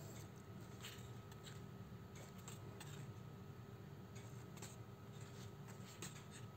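Faint rustling of paperback manga pages being turned and leafed through by hand, a soft brush of paper every second or so, over a steady low hum.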